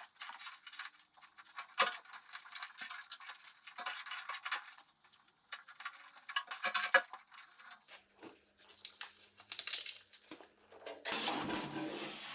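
Foil-backed Kilmat sound-deadening mat crinkling and crackling as its paper backing is peeled off and the sheet is pressed into a car door panel. The crisp rustling comes in irregular spurts with short clicks.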